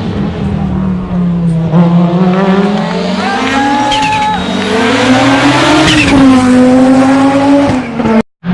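Rally car engine revving hard, its pitch climbing and then dropping back, with tyres squealing as the car slides. The sound cuts out abruptly near the end.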